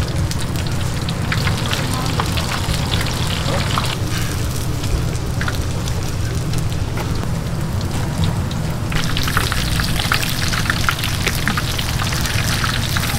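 Hot oil crackling and sizzling as battered vegetable and shrimp fritters deep-fry, the crackle growing denser and louder about nine seconds in. A steady low hum runs underneath.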